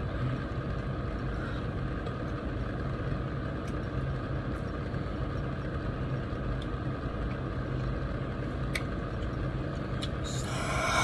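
Steady low background hum with a few faint clicks, and a brief vocal sound near the end.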